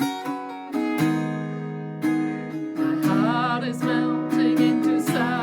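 Acoustic guitar strumming chords about once a second in a song's instrumental break. About halfway through, a wavering melody with vibrato joins in above it.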